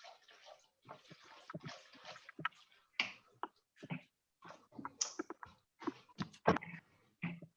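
Kitchen cooking noises heard over a video call: scattered knocks and scrapes of a utensil in a pan as noodles are mixed into a chicken sauce, with short stretches of hiss, broken up by sudden cut-outs.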